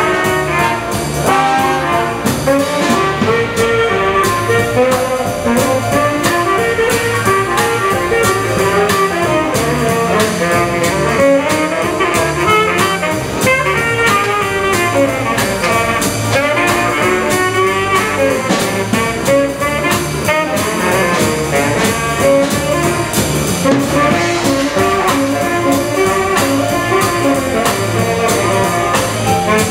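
Live traditional jazz band with trumpet, trombone and saxophone over piano and drums. The three horns play together at first, then the trombone drops out and the saxophone carries on over the rhythm section.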